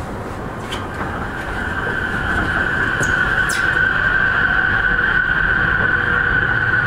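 JR East E231 series 3000-subseries electric train under way, its wheels running on the rails with a steady high whine from the Mitsubishi IGBT-VVVF drive coming in about a second in. The running noise grows louder over the first three seconds, then holds steady.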